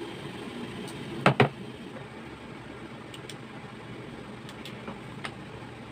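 Two sharp clacks close together about a second in, then a few light clicks and ticks, as disassembled angle grinder parts and hand tools are handled and set down on a wooden workbench.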